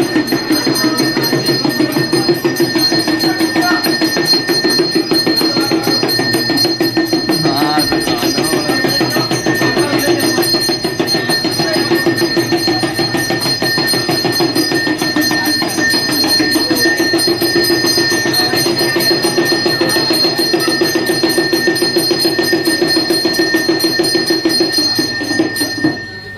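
Damru, a small two-headed hand drum, rattled fast and without a break as a steady rapid drumming, with a steady high ringing over it. It stops just before the end.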